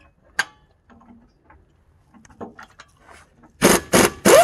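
Impact wrench on a truck wheel's lug nut, hammering in three short bursts near the end, the last one winding down with a falling pitch. Before it come a few scattered light clicks and knocks, the sharpest about half a second in.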